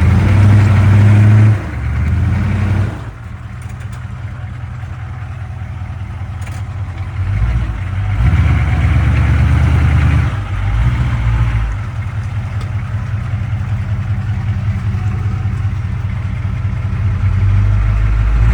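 A Chevrolet K5 Blazer's 6.2-litre V8 diesel engine running under varying throttle. It is loud for the first few seconds, drops back to a lower, steadier run, picks up again for a couple of seconds about halfway, and rises again near the end.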